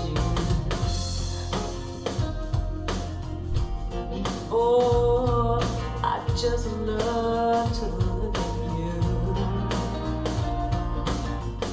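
Music: a song with a sung voice over instruments and a steady beat.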